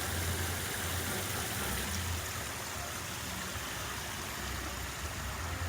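Steady running, splashing water from a garden water feature, with a low uneven rumble underneath.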